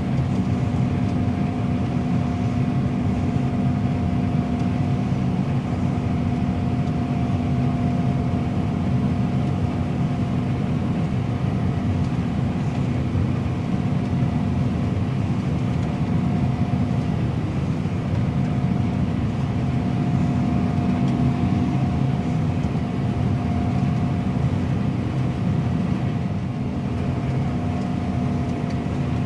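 Combine harvester running steadily while harvesting wheat: a constant machine drone with a steady low hum and a fainter, higher whine held above it.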